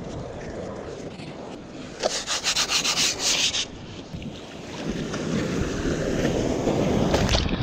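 A bodyboard leash's Velcro cuff ripping and being fastened, a quick series of rasping strokes lasting about a second and a half, about two seconds in. From about five seconds in, breaking surf and whitewater wash, growing louder and then cutting off suddenly near the end.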